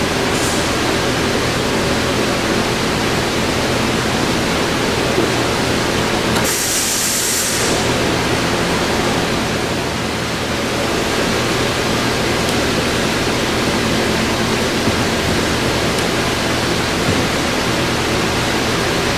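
Kent KGS618 surface grinder running steadily, a broad hum and hiss, with a brief burst of high hiss about six and a half seconds in.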